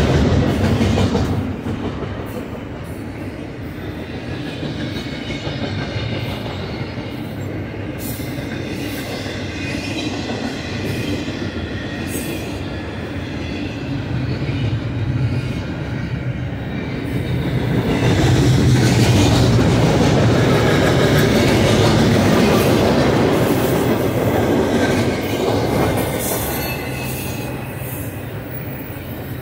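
Double-stack container train's loaded well cars rolling past on steel wheels: a steady low rumble with rail clatter and a faint high wheel squeal in the middle, swelling louder about two-thirds of the way through.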